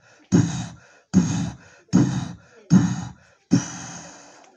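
Voices imitating a steam locomotive's puffing: five short, breathy chuffs about 0.8 s apart, the last drawn out into a long fading hiss like escaping steam.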